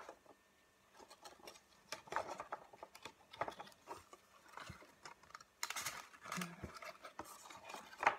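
Thin cardstock rustling and crinkling in the hands as paper hearts on a paper flower vase are pinched and shaped with the fingers, with small scattered taps and clicks and a longer rustle about six seconds in.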